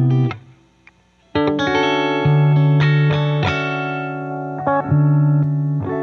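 Electric guitar, a Telecaster-style kit with Fender pickups, played through an amplifier. Ringing notes cut off about a third of a second in. After a pause of about a second, a chord strikes and picked notes and chords ring out and sustain.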